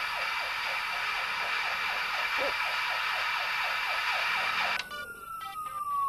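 Television static: a steady hiss with a faint rapid warble of about four sweeps a second. It cuts off suddenly about five seconds in, and a single long tone takes over, falling slowly in pitch.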